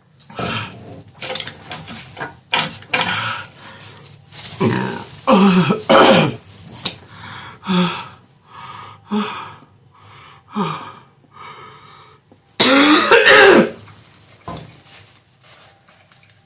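A person coughing and clearing their throat in repeated fits, with one long, hard cough about three-quarters of the way through. The coughing comes from inhaling an extra-spicy, cayenne-hot butter sauce while eating.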